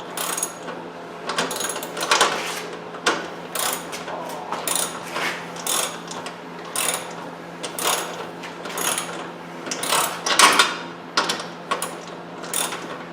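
Ratchet wrench tightening a bolt on a snow blower handle, clicking in short, uneven strokes about once or twice a second.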